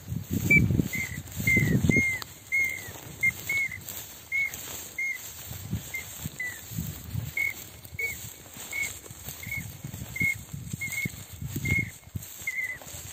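Mouth-blown duck call sounding a long series of short, thin, rising-and-falling whistled notes, about two a second, slowing slightly later on. Low rustling in the first two seconds.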